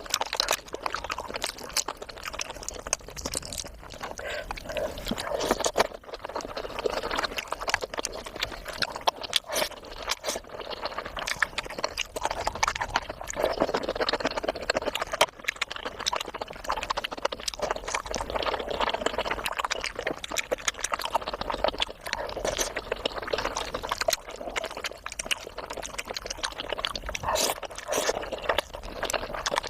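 Close-miked eating sounds: wet chewing, smacking and slurping of food, a dense run of small clicks and squelches.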